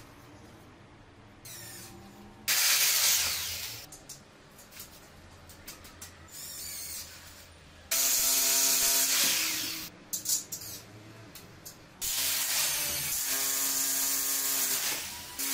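Power drills run in three bursts, the longest near the end, drilling into the ceiling to fix curved metal drywall profiles. The tools are a corded hammer drill and a cordless drill.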